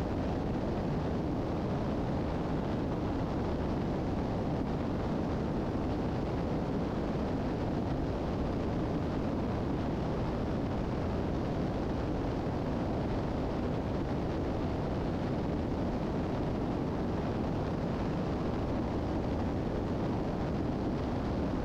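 Steady cabin drone of a Piper Seneca III twin-engine piston airplane in flight: both engines running evenly at approach power with airflow noise, unchanging throughout.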